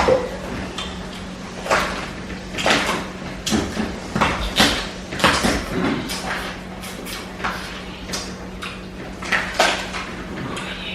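Irregular cracks, clicks and crinkling rustles of seafood being handled and eaten at the table: shells breaking and plastic rustling, over a steady low hum.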